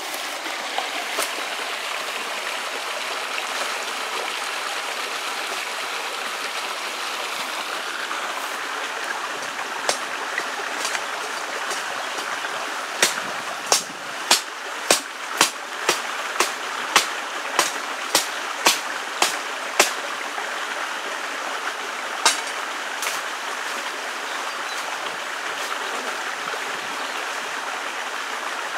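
Steady rush of running water from a stream. About halfway through, a quick run of a dozen or so sharp knocks, about two a second, cuts through it.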